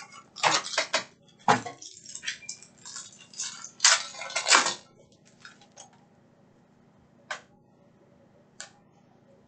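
Packaging of a 2018-19 Panini Crown Royale basketball card box being opened: the foil pack wrapper crinkling and tearing in quick bursts for about five seconds, then two faint taps as the cards are handled.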